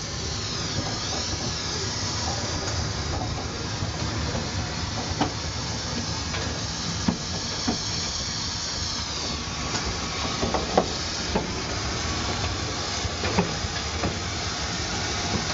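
Harz narrow-gauge steam train under way behind DR Class 99.23–24 2-10-2T tank locomotive 99 236, heard from close behind the engine: a steady hiss over a low rumble, with scattered clicks from the running gear and track. A faint wavering high whine comes twice.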